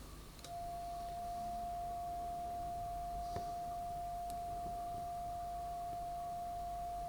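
Steady pure test tone at one pitch, starting about half a second in and holding level. It is an alignment tone used while calibrating the reel-to-reel deck, with a faint click partway through.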